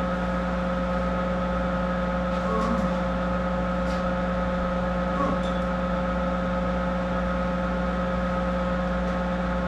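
Monarch 10EE lathe running idle, not cutting: a steady hum with several fixed tones. A faint click comes about four seconds in.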